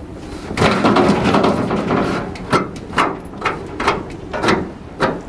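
A polar bear struggling inside a steel culvert trap: a long scraping rush, then a run of short rhythmic strokes about two a second.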